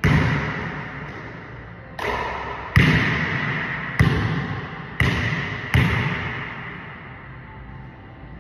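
Basketball bouncing on a hardwood gym floor: six hard, irregularly spaced bounces, each ringing out in a long echo through the large, empty gym.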